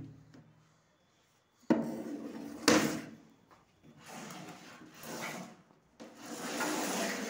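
Plastic spin-mop bucket being knocked and shoved about on a tiled floor: two sharp knocks about two and three seconds in, then rattling and scraping of the plastic.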